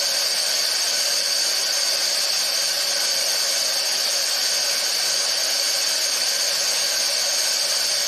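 Steady high-pitched hiss of pressurant gas flowing through the fill line into a rocket's tank, the tank being slowly pressurised.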